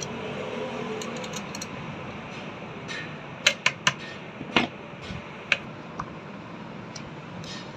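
Sharp light taps on the electric churner motor's end plate as it is seated over the new bearing: three quick taps about three and a half seconds in, then two more spaced about a second apart, with faint ticks earlier.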